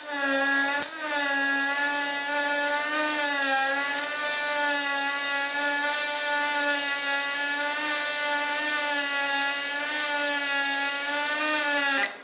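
MIG welding arc on aluminum from a water-cooled spool gun: a steady hissing buzz whose pitch wavers slightly. It breaks off briefly about a second in, then runs evenly and cuts off just before the end.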